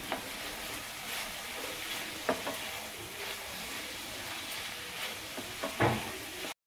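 Food frying and sizzling in a pan while it is stirred, with a few sharp knocks of the spoon against the pan, the loudest near the end. The sound cuts off suddenly just before the end.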